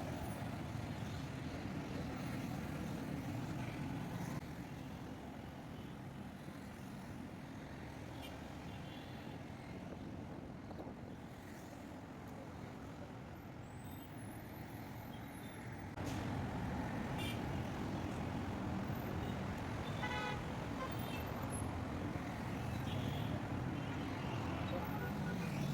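Steady road traffic noise with vehicle engines running and a few short horn toots in the second half. It turns quieter about four seconds in and louder again past the middle.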